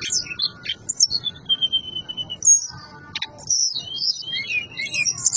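Hill blue flycatcher (murai buluh) singing: a run of high, clear whistled phrases with falling notes and quick trills, with a short pause about halfway through before it sings again.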